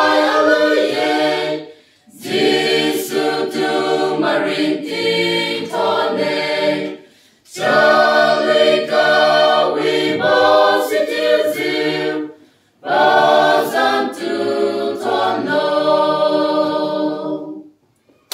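Mixed choir of men and women singing a hymn a cappella, in phrases of about five seconds with brief breaks between them; the last phrase ends near the end.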